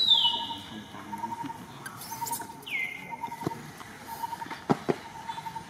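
Baby monkey giving two high squeals that slide down in pitch, one at the start and one about three seconds in. Under them runs a faint, evenly pulsing chirp, and there are a few sharp clicks past the middle.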